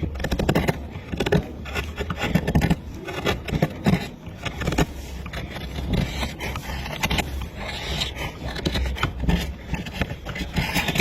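Tool scraping and cutting into wood in quick, irregular strokes, over a steady low hum.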